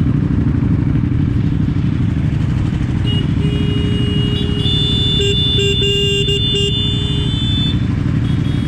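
Motorcycle engines idling with a steady low rumble. A steady high-pitched tone joins in from about three seconds in and stops a little before the end.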